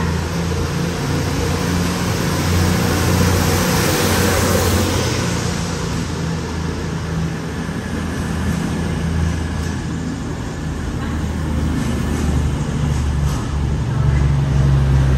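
East Midlands Railway Class 222 Meridian diesel multiple unit departing along the platform, its underfloor diesel engines running with a steady low drone. The rush of the passing coaches is loudest a few seconds in, and a few light clicks come near the end.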